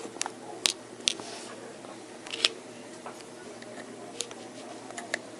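Small clicks and taps of hand tools and iPhone parts being handled during a screen repair: about six sharp, separate ticks scattered through the few seconds.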